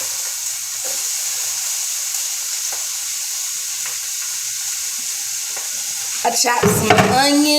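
Chopped onions sizzling in hot olive oil in a pan: a steady, even hiss.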